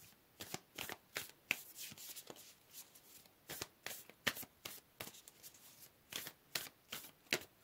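A deck of Chakra Insight Oracle cards being shuffled by hand, a quick irregular run of soft card snaps and slaps.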